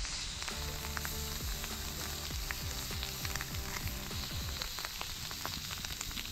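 Food frying in a hot pan, a steady sizzle with many small crackles, which cuts off suddenly at the end. Background music plays underneath.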